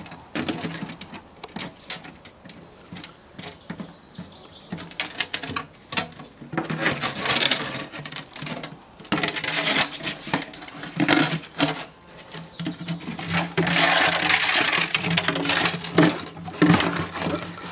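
Black Labrador puppy knocking about and dragging a plastic watering can over stone paving: irregular knocks and clatters, with longer scraping stretches about a third of the way in and again in the last few seconds.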